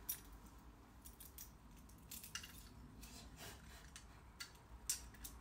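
Light metallic clicks and clinks of a small chrome door-lock part being turned over and worked in the hands, scattered irregularly.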